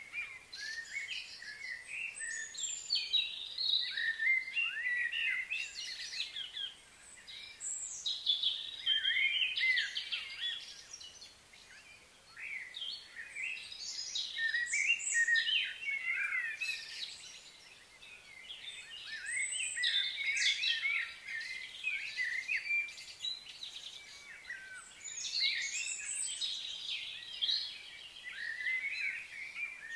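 Many birds chirping and singing at once, a busy chorus of short high calls that swells and fades every few seconds.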